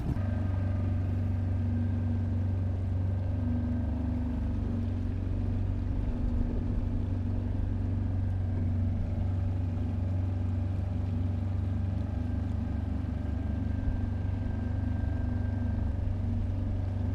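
Suzuki 2.5 hp single-cylinder four-stroke outboard running steadily, pushing a small fiberglass dinghy along. It makes a low, even engine drone with a fainter high whine above it, and the pitch holds constant throughout.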